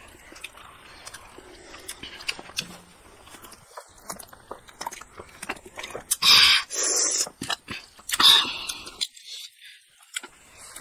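Close-up eating sounds of rice and curry eaten by hand: chewing, lip smacks and small clicks, with two louder, noisy bursts about six and eight seconds in.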